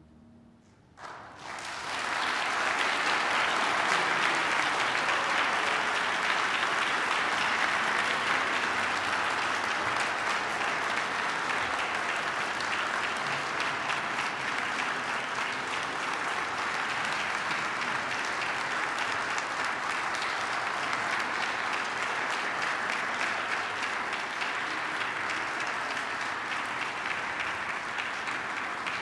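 Audience applauding. The clapping breaks out about a second and a half in, after a moment of silence, and carries on steadily, easing only slightly.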